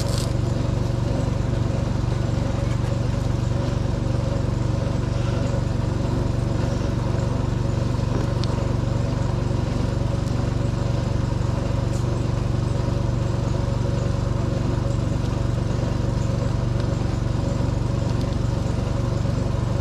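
A steady mechanical hum, a strong low tone with a ladder of overtones, unchanging throughout, with a few faint clicks.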